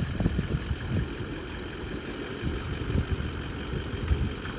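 A large engine idling with a steady low rumble.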